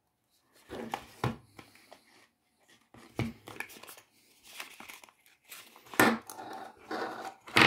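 Rustling and crinkling of a small thin cardboard perfume box being handled, with a few sharp clicks and taps, as a gold-capped glass perfume bottle is slid out of it. The loudest clicks come about six seconds in and near the end.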